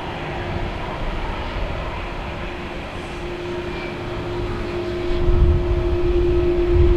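Airliner jet engines running, with a steady hum that grows stronger partway through and a deep rumble that swells louder about five seconds in.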